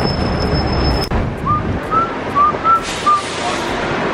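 Steady road traffic and wind noise, with a thin high whine that stops about a second in, then five short whistle-like chirps over the next two seconds.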